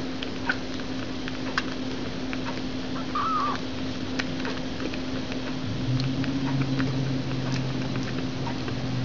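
Newborn kitten suckling from a feeding bottle: scattered soft wet clicks and smacks over a steady low hum and hiss, with a brief high squeak about three seconds in.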